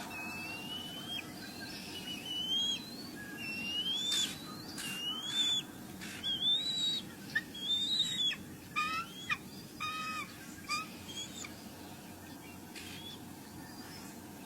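A bird's high whistled calls: a run of rising whistles, each dropping off at its end, then several quick downward-sweeping squeaks in the middle of the stretch.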